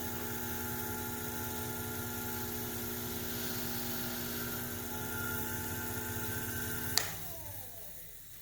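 An electric shop machine motor runs steadily with a constant hum and whine. About seven seconds in it is switched off with a sharp click, and it spins down, its pitch falling as it slows.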